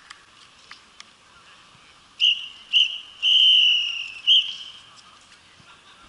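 Referee's whistle blown in four blasts: two short, then one long of about a second, then one more short.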